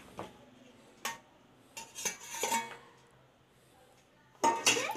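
Steel spoon scraping and clinking against a steel plate and into a plastic tub as pomegranate seeds are pushed off the plate, in a few short clatters, the loudest just before the end.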